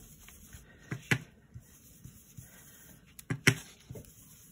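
Round blending brush dabbing ink onto cardstock on a paper mat: two pairs of short sharp taps, about a second in and again around three and a half seconds, with a lighter tap just after.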